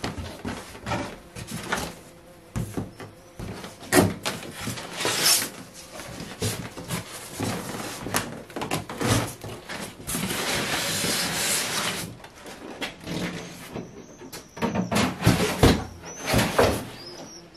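Cardboard box flaps being pulled open and a styrofoam packing lid lifted out: irregular rustles, knocks and scrapes of cardboard and foam, with a longer stretch of rubbing about ten seconds in and a few short squeaks near the end.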